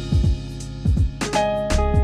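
Background music with a beat and held notes.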